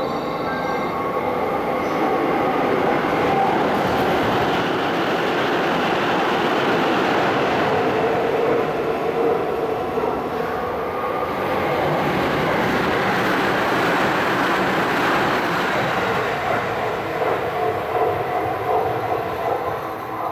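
A Tsukuba Express electric commuter train running through the station, a long steady rush of wheel and running noise that builds about two seconds in and eases near the end.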